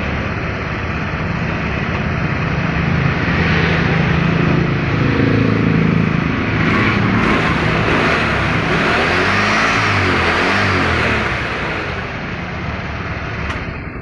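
A motorcycle engine running, growing louder a few seconds in and rising and falling in speed before easing off near the end.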